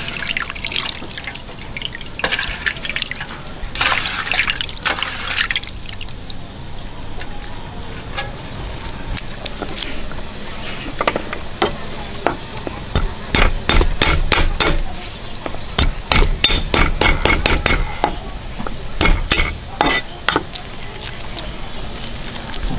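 Water splashing and draining as squeezed, shredded bitter gourd is handled in a stainless-steel colander, then, for most of the rest, a run of sharp clicks, cracks and knocks on a wooden chopping board as a garlic bulb is broken into cloves and peeled.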